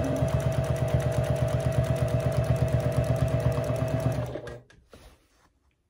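Domestic sewing machine running at speed while free-motion quilting, the needle stitching in a fast, even rhythm over a steady motor whine. It stops about four seconds in, followed by a few faint clicks.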